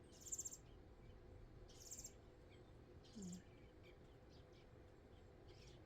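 Faint, high-pitched bird chirps: two short bursts in the first two seconds, then a few fainter ones, over a quiet background hiss.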